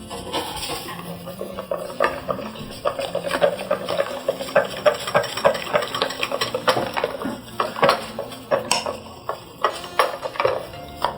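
A utensil stirring a mixture in a bowl, clinking and scraping against the bowl in quick, irregular strokes.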